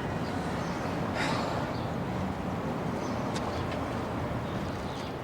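Steady outdoor street background noise with a low hum, like distant traffic. A brief louder hiss comes about a second in, and a few faint ticks follow.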